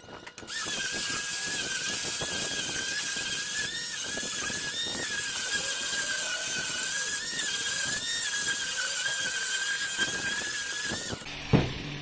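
Handheld electric disc sander running against a wooden plank: a steady high whine that dips slightly in pitch a few times. It starts about half a second in and cuts off near the end, followed by a single thump.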